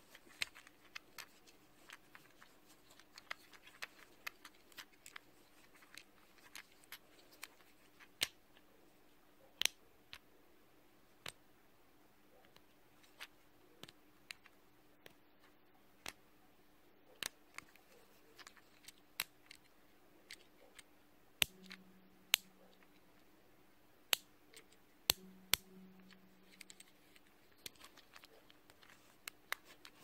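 Soft tapping and button pressing: sharp, irregular clicks, sometimes in quick runs, over a faint steady hum.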